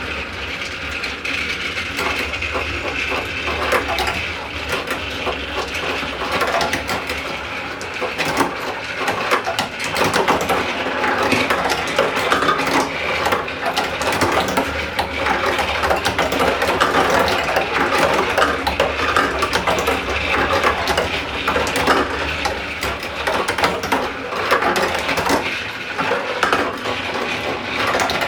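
Marbles rattling and clacking along a toy marble run, a dense stream of small clicks and knocks, over the steady hum of a small toy motor.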